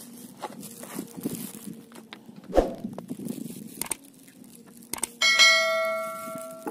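A click, then a bell chime that rings and fades over about a second and a half: the sound effect of a YouTube subscribe-button animation. Earlier, a single thump about two and a half seconds in.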